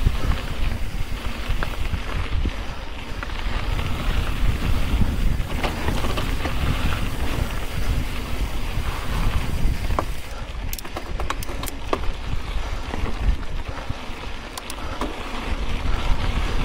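Wind buffeting the camera microphone over the sound of mountain bike tyres rolling on a rocky dirt trail. Scattered clicks and knocks come from the bike rattling over rocks, with a cluster of them about ten seconds in.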